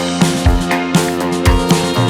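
Loud recorded music with a steady beat of bass-drum thumps about four times a second and held instrumental notes.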